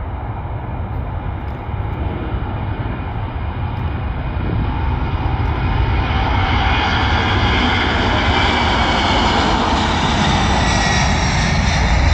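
Boeing 747-400's four turbofan engines at take-off thrust during the take-off roll, a steady jet noise over a deep rumble that grows louder as the jet comes closer, its higher hiss filling in from about halfway through.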